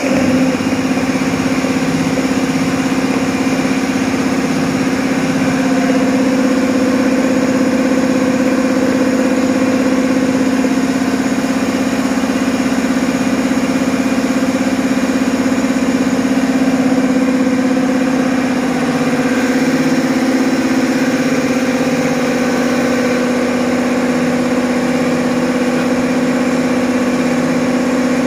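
A loud, steady machine hum with a hiss, switched on abruptly, as compressed air is fed into a plate-and-frame filter press to blow the remaining oil out of the filter cake.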